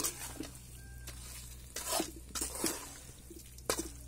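Metal ladle stirring thick chicken masala in an aluminium kadai: wet squelching and a few short scrapes of the ladle against the pan.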